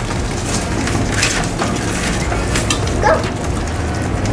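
Cane Corso puppies crowding a plate of gruel, eating with wet lapping and smacking and many small clicks; one puppy gives a short rising whine about three seconds in.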